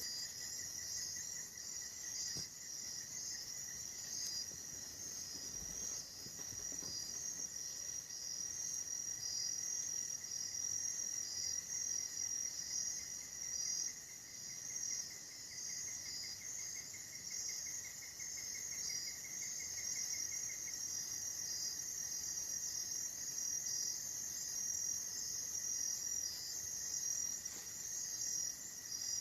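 A night chorus of insects: a dense, steady high-pitched shrilling, with a thinner, lower steady tone beneath it that breaks into a rapid pulsing trill for several seconds midway.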